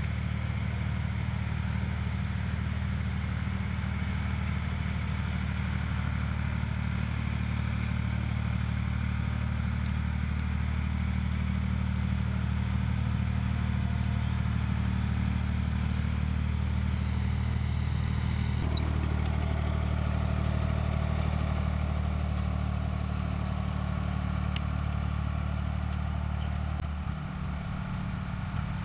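Ford tractor engine running steadily as it pulls a two-row precision seed drill while sowing maize. Its tone shifts about two-thirds of the way through and again near the end.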